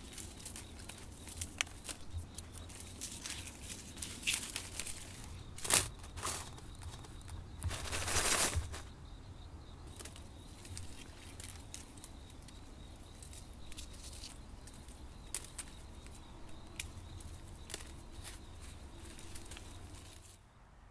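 Dry mesquite pods and twigs rustling and clicking as they are handled, with a louder rustling rattle about eight seconds in, as pods go into a woven basket.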